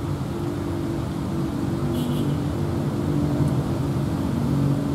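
Diesel locomotive engine running with a steady low drone as the train approaches slowly, growing a little louder near the end.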